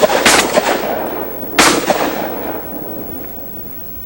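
Shotgun blasts at incoming ducks. A quick run of shots comes in the first half-second, then another loud shot about a second and a half in, each one fading away slowly.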